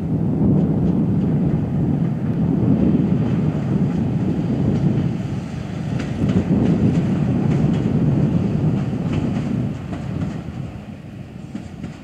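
Electric locomotive E422-0003 and its passenger coaches rolling past at close range: a steady low rumble with a few wheel clicks. The sound fades as the train moves away near the end.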